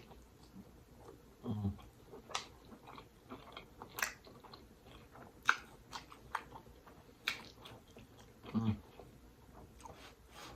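Close-miked chewing of creamy pasta and seafood: wet mouth clicks and smacks at irregular intervals, with two short low sounds about one and a half and eight and a half seconds in.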